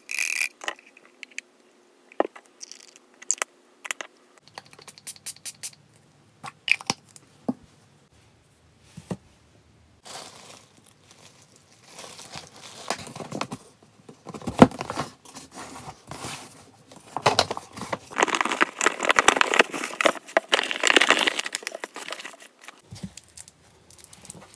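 Small plastic bottles and items set down and handled, giving scattered clicks and taps, then a bag of cat-litter-style tofu and bentonite litter being handled, crinkling and rustling for several seconds, loudest about three-quarters of the way in.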